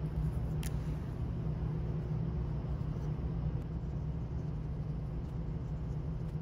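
Steady low rumble of background noise, with a single faint click under a second in.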